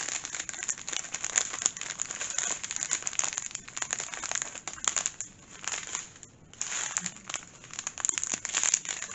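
Strip of small plastic sachets of diamond painting drills crinkling and crackling as it is handled, in a dense run of crackles with a brief pause about six seconds in.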